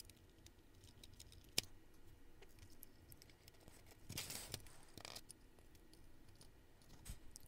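Faint clicks and handling noise from fingers and small tools on the small metal and plastic parts of an HO scale model locomotive, with one sharper click about a second and a half in and a short rustle around four seconds in.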